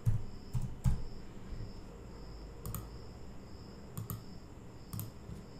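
Scattered clicks of a computer keyboard and mouse, single isolated clicks, three in the first second and a few more spread through the rest.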